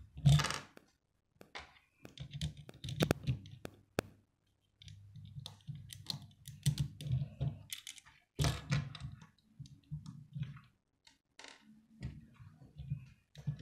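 Plastic Lego bricks clicking as they are handled and pressed together, irregular sharp clicks with dull knocks of the bricks and hands on a wooden tabletop.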